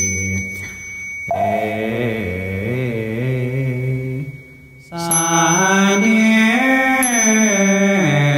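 Chinese Buddhist fanbai chant: a single voice sings long, drawn-out notes that glide slowly up and down, with a short pause for breath about four and a half seconds in.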